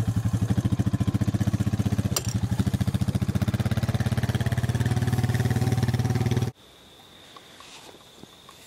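An engine running at idle with an even, rapid low pulsing. It cuts off abruptly about six and a half seconds in, leaving only faint background sound with a thin, steady high tone.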